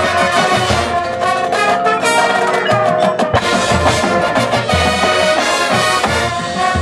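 Drum and bugle corps playing: the brass line holds layered chords over the percussion, with low drum hits underneath.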